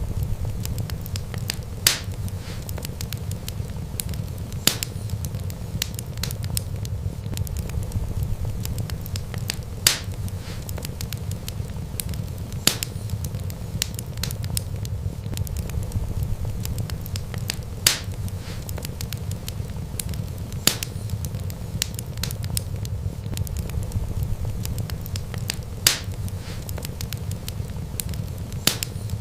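Wood fire crackling: a steady low rumble of the flames with sharp pops every few seconds.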